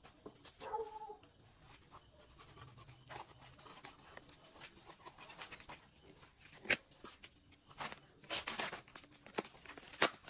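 Insects trilling steadily at one high pitch, with a short lower call about a second in and scattered sharp clicks and knocks in the second half.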